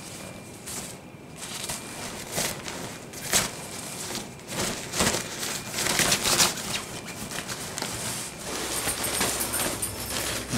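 Fabric of a collapsible nylon cat tunnel rustling and crinkling in irregular bursts as a cat scrambles and plays inside it, loudest about halfway through.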